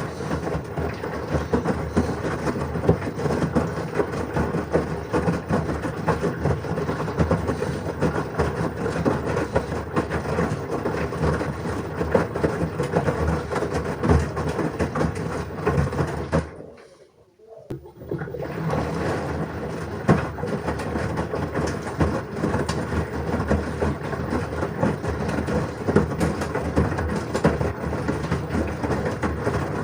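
LG washing machine running a wash, the drum turning with a steady rumble and many small clicks and knocks. About 17 seconds in it stops for roughly a second, then starts up again.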